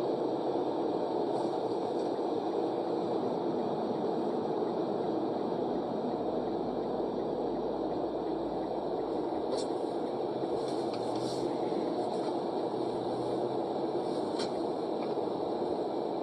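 Steady road and engine noise of a car driving, heard from inside the cabin through a dashcam microphone, with a few faint ticks partway through.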